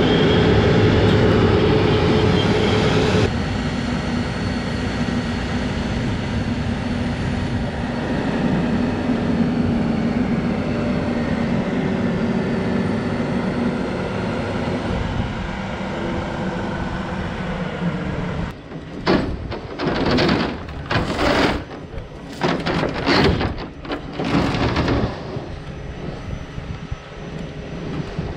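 A large engine running steadily with a droning tone, changing abruptly about three seconds in. Near the end comes a run of several loud, rough bursts of noise lasting a few seconds, then a quieter stretch.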